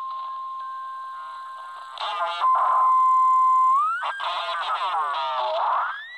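Albrecht AE 2990 AFS handheld CB transceiver receiving 27 MHz single-sideband traffic through its speaker: a steady heterodyne whistle with stretches of distorted, off-tune sideband voice. Whistle tones slide up in pitch, and near the end one rises and falls.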